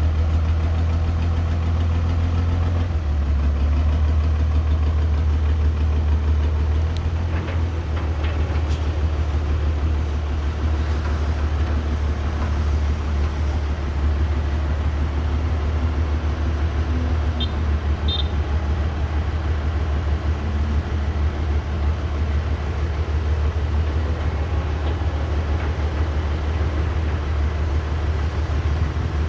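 Caterpillar 312B hydraulic excavator's diesel engine running with a steady low drone that shifts a couple of times. A few sharp knocks come about eight seconds in.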